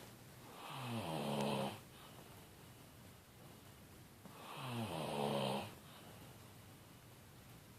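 A man snoring in his sleep: two snores about four seconds apart, each sliding down in pitch and then holding steady, with quiet between.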